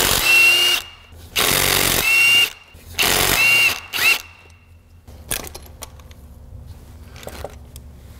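Cordless power tool spinning out small bolts from an engine part in four short runs in the first four seconds, each with a high motor whine that rises as it stops. Faint clicks of the part and tool being handled follow.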